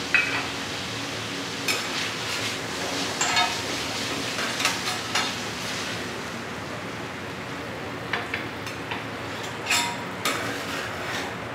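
Metal spatulas clinking and scraping on a steel flat-top griddle as diced scallops are stir-fried and scooped up, in irregular strokes over a light steady sizzle.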